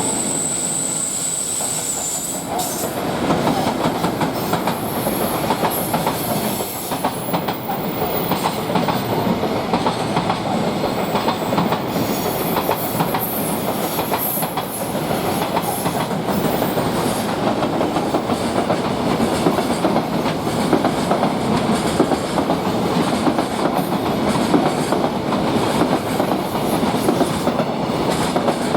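Freight trains passing at speed: the wagons' wheels clatter steadily over rail joints in a continuous rumble. A faint high whine sounds briefly in the first two seconds.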